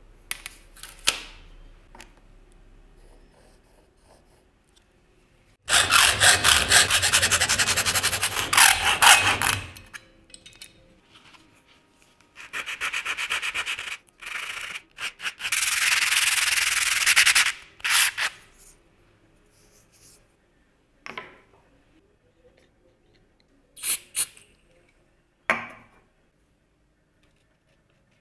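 Hand rubbing on an abrasive surface with quick back-and-forth strokes, like hand sanding. It comes in three bouts of several seconds each, then a few single short strokes near the end.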